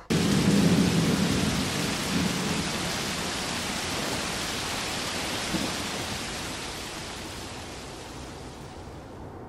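Thunderstorm sound effect: a roll of thunder over steady rain, starting suddenly and slowly fading. The rain cuts off abruptly near the end.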